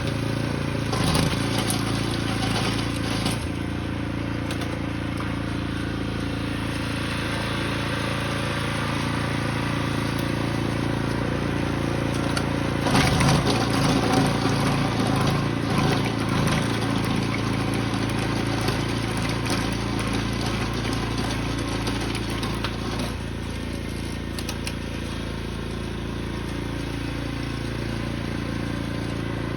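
A small engine running steadily, louder and rougher for a few seconds about halfway through, as it works clearing snow.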